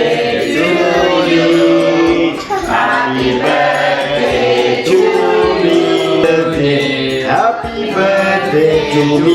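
Several voices singing together, held notes that glide from one pitch to the next, with no speech.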